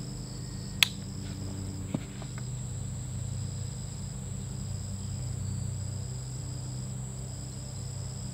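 Summer insects chirring steadily, a high continuous buzz with a second, broken trill over it, above a low steady hum. A sharp click comes about a second in, and a softer one about two seconds in.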